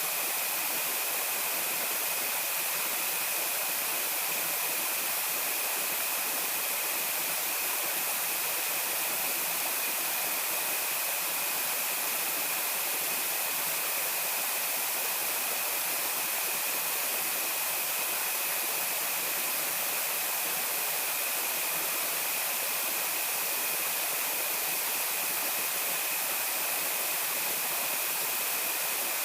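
Steady rushing of flowing water at a constant level, with a thin unchanging high whine running through it.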